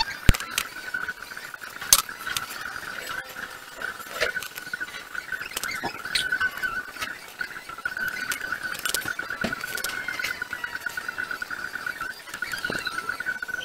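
Pencil scratching on paper, with sharp clicks and taps as a wooden ruler is set down and moved across the sheet, over a steady high, fluttering whine.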